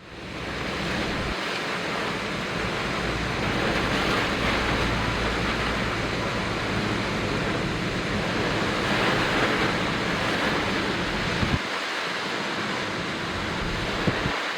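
Strong typhoon wind and heavy surf on the coast, a steady rushing noise with wind buffeting the microphone. Two short knocks come near the end.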